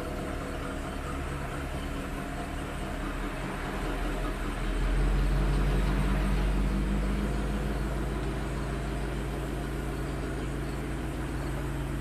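A car engine running steadily, swelling louder about four to five seconds in and then slowly easing off.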